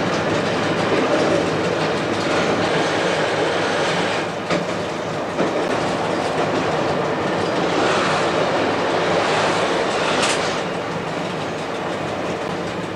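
South Australian Railways Bluebird diesel railcar running along broad-gauge track, heard from aboard: a steady running noise of engine and wheels, with a few sharp clicks midway and a short hiss near the end.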